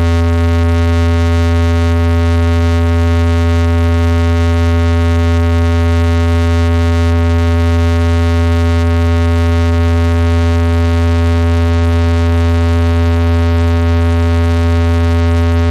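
A DJ sound system holding a single loud, steady low bass tone with a stack of higher overtones, unchanging throughout: a sustained test tone played during a sound check.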